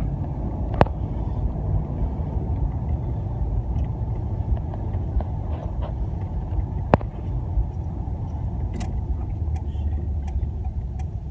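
Steady low rumble of a car on the move, heard from inside the cabin, with two sharp clicks, one about a second in and one about seven seconds in.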